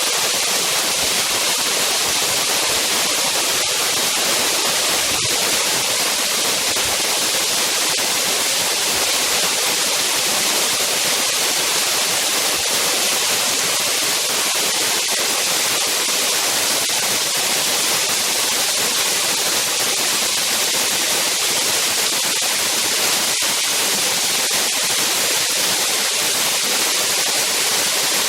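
Waterfall pouring: a loud, steady rush of falling water that does not let up.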